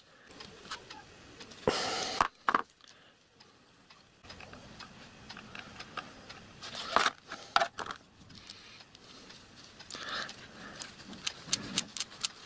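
Small metallic clicks and ticks as a small brass gear assembly on a stub axle is handled and turned by hand while the gear mesh is set. There is a short hiss about two seconds in, and a cluster of clicks near the end.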